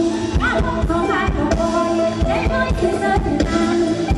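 Live Thai luk thung band music with a steady drum beat and a woman singing the melody over it.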